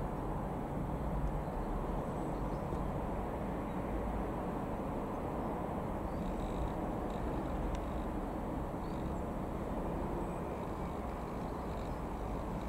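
Piper PA-28-180 Cherokee's four-cylinder Lycoming piston engine and propeller making a steady, distant drone as the light aircraft flies past in the air.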